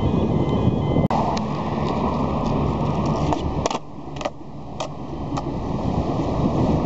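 Steady low rumble of wind buffeting the microphone together with road traffic, broken by a brief cut about a second in. A few sharp clicks come through from about halfway.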